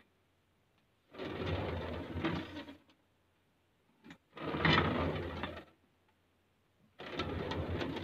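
Office chair's plastic casters rolling across a hard floor as the chair is slid, three separate slides of about a second and a half each with pauses between, a short knock just before the second.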